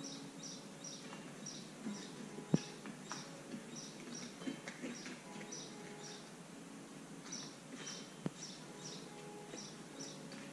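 A bird chirping: short high chirps repeated two or three times a second, pausing for a couple of seconds midway. Under them are faint handling noises and a sharp click about two and a half seconds in.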